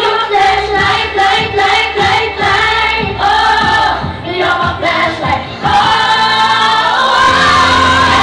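A group of women singing together, one into a microphone, over music with a steady beat.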